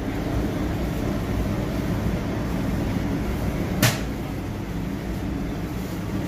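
Steady low hum of commercial kitchen equipment, with one sharp clack a little under four seconds in.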